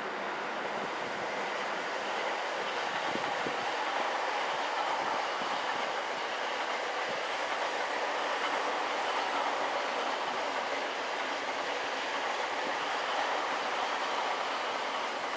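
Electric commuter train running past on the tracks: steady wheel-on-rail noise.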